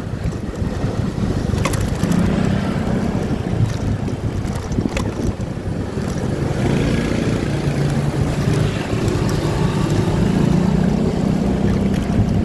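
Motorcycle engine running while riding, its pitch rising and falling a little with the throttle, over a low rumble of wind on the microphone.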